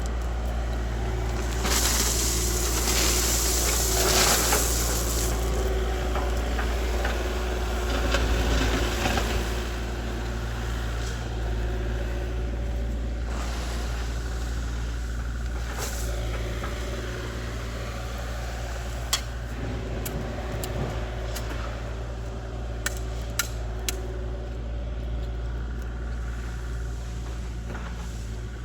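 An engine running steadily at a constant speed, with a burst of hissing noise a few seconds in and several sharp clicks later on.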